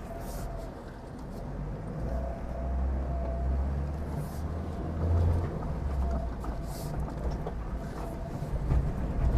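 Liebao Black King Kong 4x4's 2.4-litre engine pulling under throttle as the vehicle drives over rough, uneven dirt. The low rumble swells a few seconds in, with scattered light knocks from the body and chassis; little chassis noise is heard, which the driver takes to mean the chassis is in fair shape.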